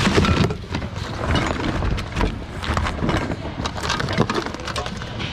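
Assorted goods in a thrift-outlet bin being rummaged through by hand, with irregular knocks, clatters and rustles of objects shifting against each other over a steady store background.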